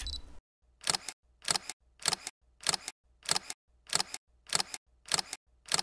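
Camera shutter firing nine times in a steady series, a little under twice a second, each shot a quick double click. A short high beep sounds at the very start.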